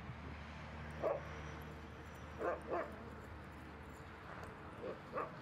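Siberian huskies giving short yips during play: one about a second in, two close together midway, and two more near the end.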